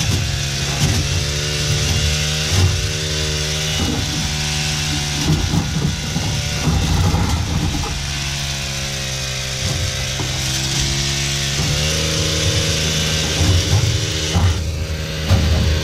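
Extended pole hedge trimmer running steadily, its engine pitch shifting up and down as the blades cut into a dense hedge, with short bursts of cutting noise from the branches.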